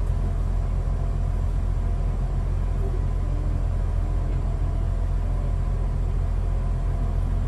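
Diesel engine idling: a steady, even low rumble, heard from inside a standing passenger train carriage.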